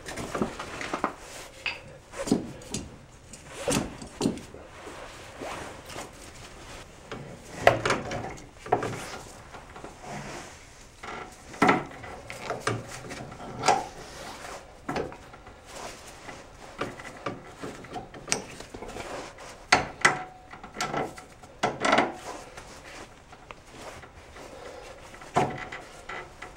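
Hand tools and metal front-suspension parts of a Can-Am ATV being handled during reassembly: irregular clinks, knocks and rubbing, a few of them ringing briefly like struck metal.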